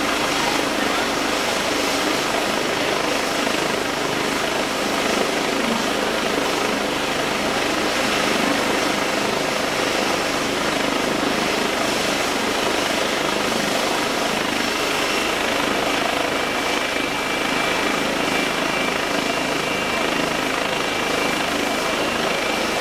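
Eurocopter EC135 medical helicopter running on the ground with its rotor turning, a steady rotor and turbine noise. A thin high turbine whine comes in about halfway through.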